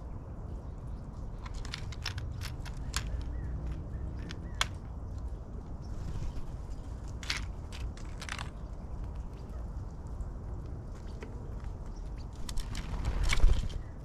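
Black-billed magpie pecking at seed and peanuts on a wooden platform feeder: scattered sharp clicks and taps of the bill on food and wood over a low steady rumble. A louder rush of noise swells near the end.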